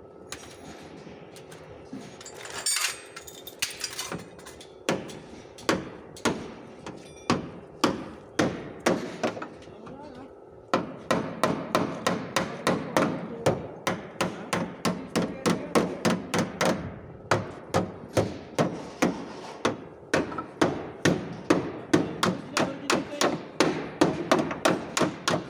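Body hammer tapping out a dent in the sheet metal of a car's rear fender. Spaced strikes about one a second at first; about ten seconds in a steady background noise comes up and the tapping quickens to three or four blows a second.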